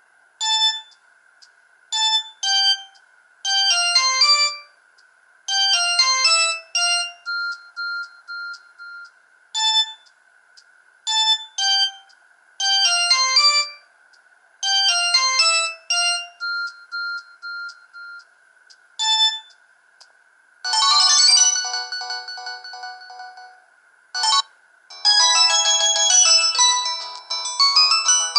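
Samsung GT-E2100 mobile phone playing its built-in ringtone melodies: short, bright beeped notes in quick phrases with pauses between, over a faint steady high whine. About twenty seconds in, a denser, fuller-sounding tune takes over.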